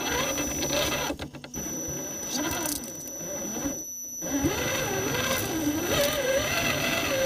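Electric motor and gearbox of an Axial SCX10 Honcho 1/10-scale RC rock crawler whining as it drives, the pitch rising and falling with the throttle. It drops out briefly about a second in and again around four seconds in, under a thin steady high whine.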